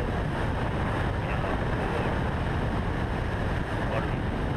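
Steady rush of airflow over a wing-mounted action camera on a light aircraft in flight. It is an even, unbroken noise, heaviest in the low range.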